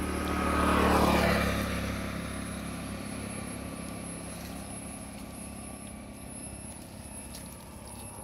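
A motor vehicle passing on the road: its sound swells to a peak about a second in, drops in pitch as it goes by, then fades away slowly.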